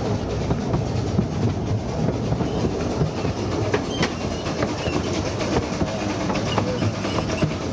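Narrow-gauge railway carriage running along the track, heard from aboard: a steady rumble of the wheels with frequent irregular clicks over the rail joints.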